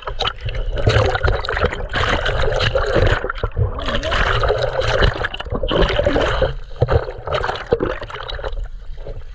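Water splashing and gurgling around a camera held at and below the water surface, with many sharp splashes in quick succession.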